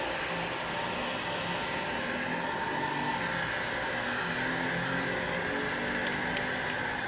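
Hot-air blower running steadily, a fan-driven rush of air with a faint whine, heating a phone's glued back cover to soften the adhesive.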